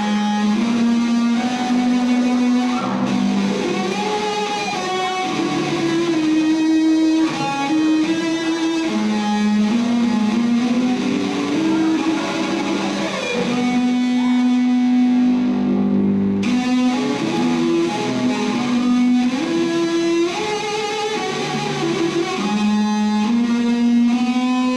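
Amplified electric cello played with the bow: a single melody of long held notes, some gliding into the next.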